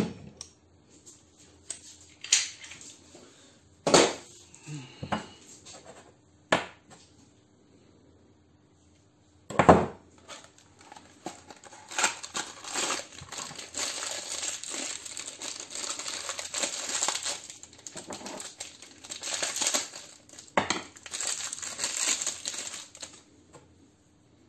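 Workshop handling noise: small metal parts and tools clink and are set down with a few sharp knocks, then about ten seconds of dense rattling and crinkling.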